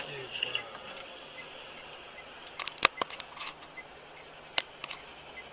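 Inside a car slowing to a stop: a cluster of sharp clicks and knocks in the cabin a little under halfway through, then one louder click about a second and a half later and two faint ones after it, over low steady cabin noise.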